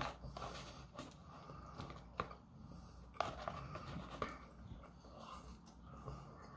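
A cardboard fast-food sandwich box handled and rustled as a chicken sandwich is lifted out of it, with a few sharp clicks and taps, about one a second in the first half, over faint mouth noises.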